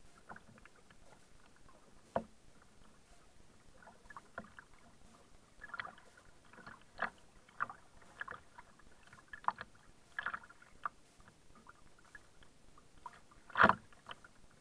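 Kayak paddling on the sea: irregular splashes and drips of water off the paddle blades, with small knocks and clicks. Near the end there is a single louder knock as the kayak comes against a barnacle-covered piling.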